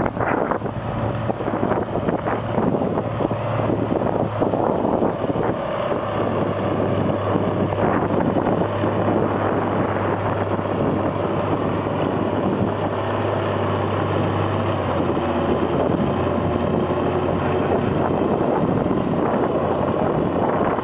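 International Harvester 806 tractor's six-cylinder engine running steadily under heavy load as it pulls a weight-transfer sled. Its low note drops slightly about three-quarters of the way through.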